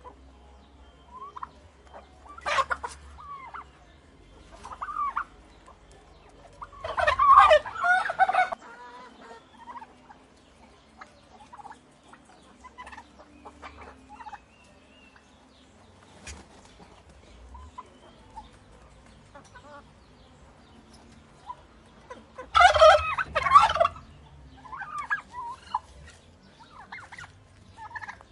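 Turkeys gobbling: two loud gobbles, about seven seconds in and again about twenty-two seconds in, with shorter, softer calls between.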